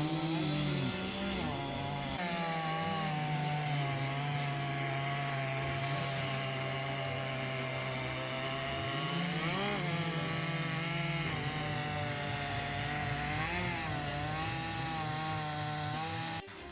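Chainsaw running and cutting wood, holding a steady pitch that dips and swings back up about ten seconds in and again a few seconds later. It cuts off abruptly near the end.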